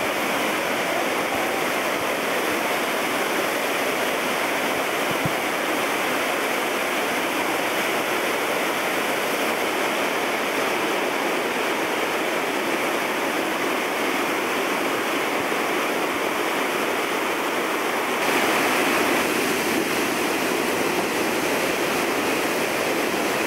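The Wildcat River in flood after heavy rain, its brown whitewater pouring over the Jackson Falls cascades in a steady, dense rush. The rush grows a little louder about three quarters of the way through.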